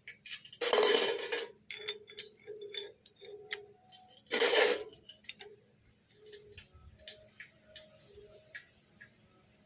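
Small metal parts and hand tools clicking and clinking as they are handled during gearbox work. Two louder, harsher noises, each under a second long, come about a second in and again about four and a half seconds in.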